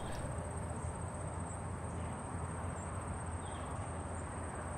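Steady outdoor ambience: a low rumble with a constant thin high-pitched tone over it.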